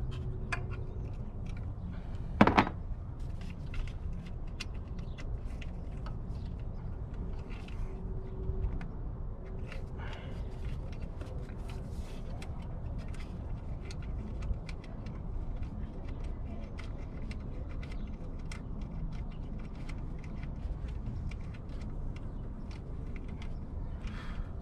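Small metallic clicks and taps of a hand wrench working tight bolts under a car's hood, with one louder knock about two and a half seconds in, over a steady low rumble.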